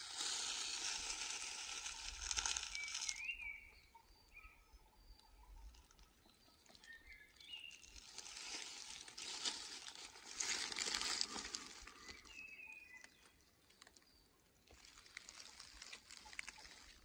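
Dry beech leaves rustling and crunching in three spells as someone moves over the leaf litter, with birds chirping in the gaps.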